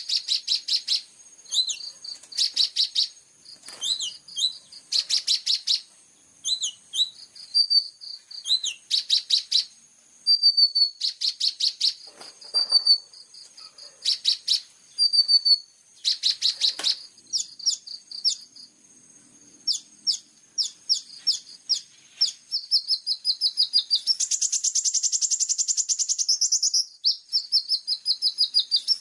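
Songbird song used as masteran fill-in material for training olive-backed sunbirds: high, rapid chirps, trills and slurred notes in short phrases with brief pauses. About 24 s in, it changes to a continuous, very fast buzzing trill.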